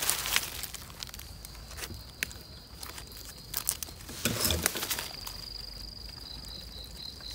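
Dry leaf litter rustling and crackling as someone moves through it, searching the forest floor, in scattered short crunches. A thin high steady tone sounds in the background twice, with a short run of high pips near the end.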